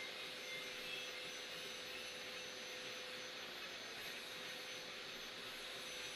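Steady background hiss with a faint constant hum, and no distinct event.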